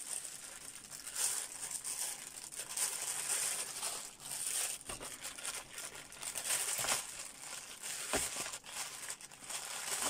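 Plastic packaging bag crinkling and rustling as it is handled and cut open with a knife, with a few sharp clicks along the way.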